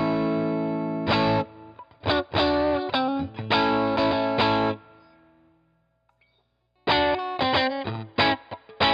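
Fesley ST electric guitar played through overdrive. A held chord and a few more chords ring out and fade to silence about six seconds in, then a run of quick picked notes starts near the end.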